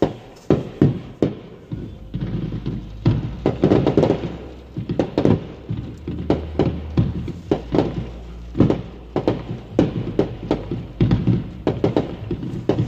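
Fireworks shells bursting overhead in a rapid, irregular barrage of booms, several a second, heard muffled from inside a car with the windows partly up.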